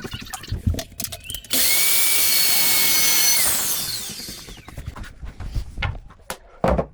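Power saw switched on and run for about two seconds, trimming a few millimetres off a wooden plinth, then switched off and spinning down with a falling whine. Scattered knocks and handling clatter before and after.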